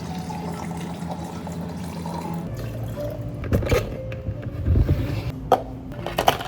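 Liquid running steadily with a low hum for about two and a half seconds, then a few light knocks and clinks of drink-making.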